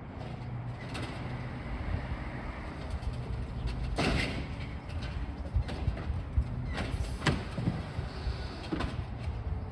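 Garbage truck engine running steadily, with a few short, sharp clanks or hisses about four, seven and nine seconds in.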